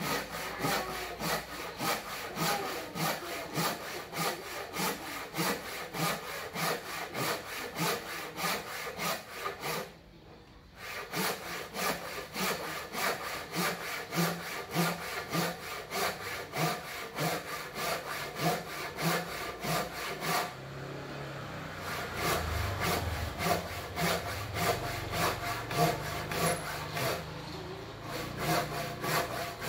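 Hand saw cutting through a wooden beam with steady back-and-forth strokes, about two a second, rasping through the wood. There is a brief pause about ten seconds in before the sawing resumes.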